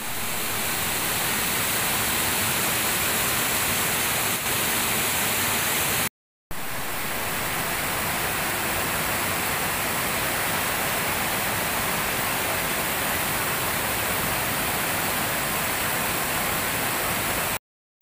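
Water of a rocky waterfall cascading over boulders: a steady rushing noise, broken by two brief dropouts to silence at edit cuts, about six seconds in and just before the end.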